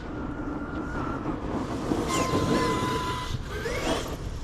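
Large RC monster truck's brushless electric motor whining, its pitch rising and falling as the throttle is worked, with a steadier whine early on.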